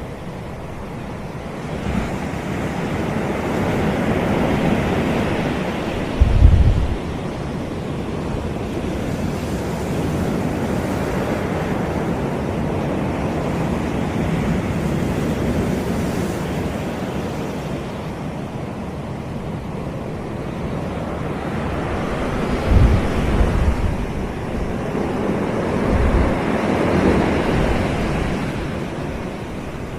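Caribbean sea waves breaking and washing up a beach, the surf swelling and easing in slow surges. Wind buffets the microphone in a few short low thumps, the strongest about six seconds in and others over the last several seconds.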